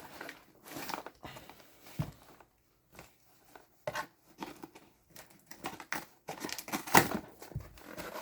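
Shipping box being opened by hand: irregular rustling, crinkling and tearing of cardboard and packing material, with a sharp click about seven seconds in, the loudest sound.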